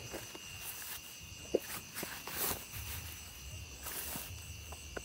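Steady high-pitched ringing of crickets and other night insects, with a few soft footfalls and rustles through grass and brush.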